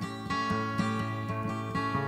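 Music: an acoustic guitar playing a steady rhythmic instrumental passage.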